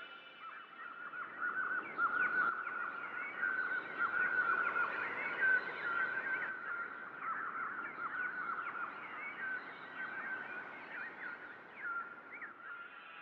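A flock of birds calling, with many short overlapping chirps and squawks.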